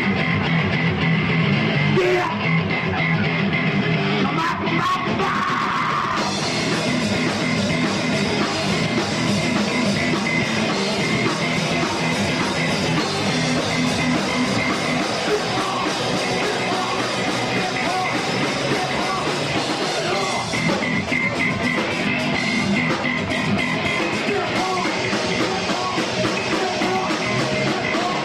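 Live funk-metal band playing loudly: electric guitar, bass and drum kit, with yelled vocals. The sound gets brighter and fuller about six seconds in.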